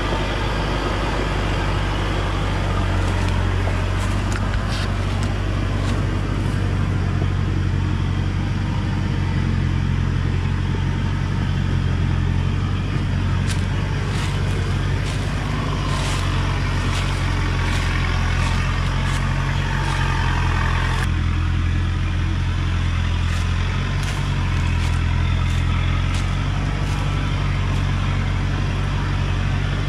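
Diesel engine of a truck loaded high with acacia logs, running steadily under heavy load as it crawls along a rough dirt track, its deep drone stepping up and down in pitch. Scattered clicks and rattles sound over it.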